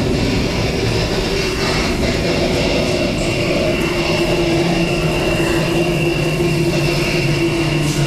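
Storm wind on board a ship at sea: a loud, steady rushing with a constant hum and a thin high whistle held underneath it.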